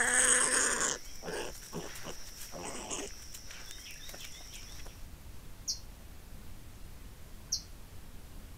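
Wild boar and piglets: a squealing, grunting burst in the first second, then a few shorter snuffles and rustles up to about three seconds in, over a steady high insect trill that stops about five seconds in. Three short high chirps follow later.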